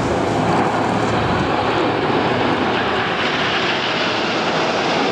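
A fixed-wing display aircraft's engine noise, a steady, loud rush that grows slightly brighter about three seconds in.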